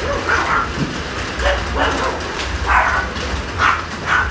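A dog barking in short, separate barks, several times over a few seconds.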